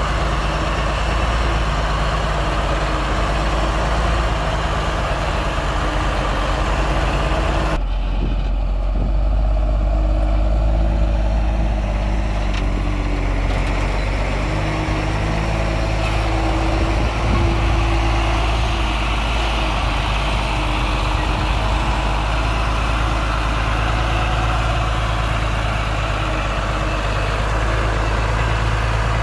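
Heavy diesel construction machinery running steadily, a deep engine sound, with the sound suddenly turning duller about eight seconds in.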